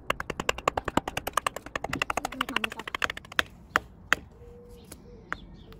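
A wooden baton tapping the spine of a fixed-blade knife to drive it down through a stick of split wood: a fast run of light taps, about nine a second, for some three seconds, then three single, harder knocks spread over the next two seconds.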